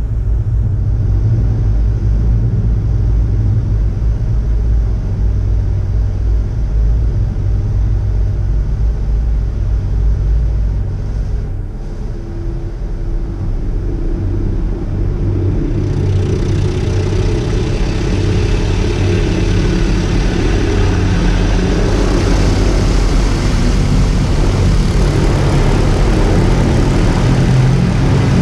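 High-pressure water jets of a Mark VII touch-free automatic car wash blasting the car, heard from inside the cabin as a loud, steady low rumble with a hiss of spray. About halfway through, the hiss of water on the glass grows louder.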